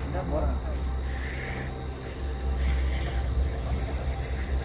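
Cricket trilling steadily, a high, fast-pulsing trill that does not break, over a steady low rumble.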